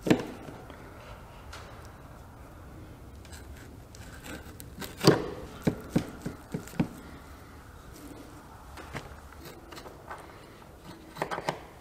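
Knife scraping and cutting between the rib bones of a whitetail deer rack as the bones are frenched, with scattered sharp knocks and taps of the blade, a quick run of them about halfway through and a few more near the end.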